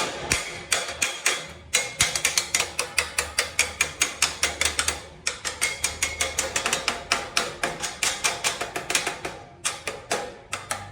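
Rapid hammering: sharp strikes at about six a second, in runs of a few seconds with short breaks between them.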